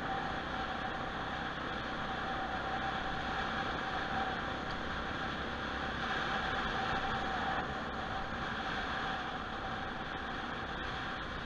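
Motorcycle running steadily at low riding speed: an even rushing engine and road noise with one faint steady tone, swelling a little about halfway through.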